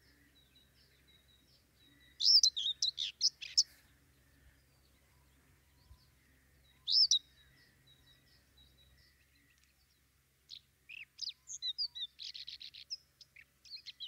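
A small songbird chirping in short bursts: a quick cluster of chirps about two seconds in, a single chirp around seven seconds, and a fast run of short chirps from about ten and a half seconds on.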